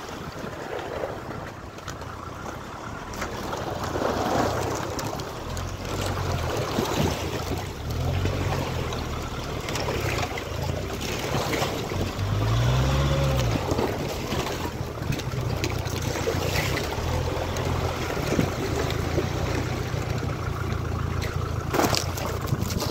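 Car engine driving slowly over a rough off-road dirt track, revving up and down with the bumps, with knocks and rattles from the car as it jolts; the engine swells loudest about halfway through, and two sharp knocks come near the end.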